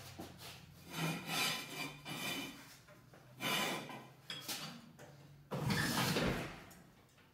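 Hydraulic floor jack being worked by its long handle under a car's front end: a run of uneven scraping, rasping strokes, the longest and loudest about five and a half seconds in.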